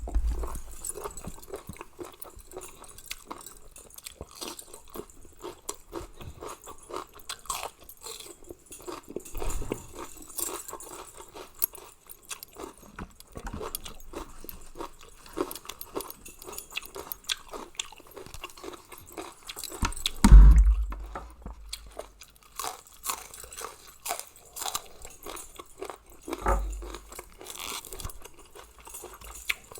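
A person chewing and crunching a mouthful of spicy Thai mixed-seafood salad close to the microphone, with many small wet clicks and crackles. A few dull low thumps come through, the loudest about twenty seconds in.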